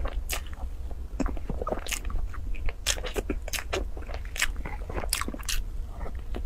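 Close-miked eating of a soft cream-topped cake: wet lip smacks and chewing clicks at an irregular pace, with a wooden spoon scraping the paper box as she scoops.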